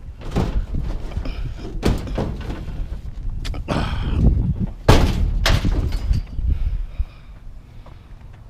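Sheet-metal cabinet of a heavy clothes dryer knocking and banging as it is manhandled upright, a string of thuds with the loudest about five seconds in. The banging dies down after about seven seconds.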